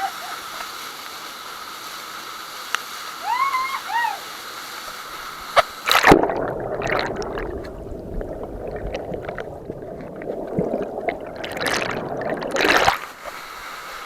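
Steady rush of falling water, then a splash about six seconds in as the microphone goes under the water. About seven seconds of muffled underwater gurgling and sloshing follow, then another splash as it comes back up into the open rush of the falls.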